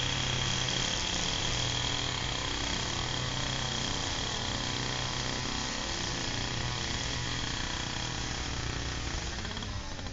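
Echo two-stroke string trimmer running steadily at high revs while edging, heard from a distance, with a steady high-pitched whine over the engine hum; it drops off near the end.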